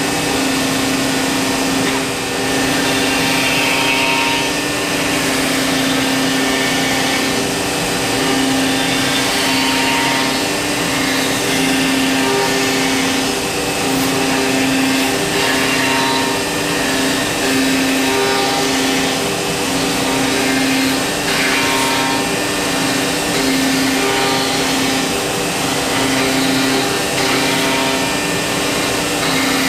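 Busellato Jet Optima C21 CNC machining centre running while it machines a wooden interior door: a steady machine hum over a rushing, vacuum-like noise. From several seconds in the hum swells and dips about once a second.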